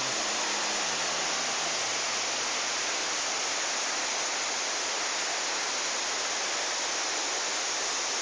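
Water rushing over the rocks of a waterfall cascade: a steady, even rush, with faint music fading out in the first second or so.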